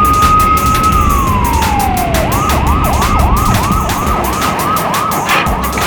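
Police siren: a long wail that slowly rises, then drops, and about two seconds in switches to a fast yelp, repeating rising sweeps about three times a second, over background music with a steady beat.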